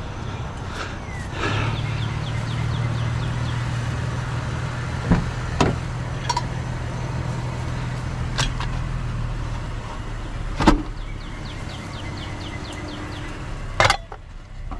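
A motor vehicle running steadily at idle, with several sharp knocks and clanks of scrap being handled. The loudest knocks come near the end.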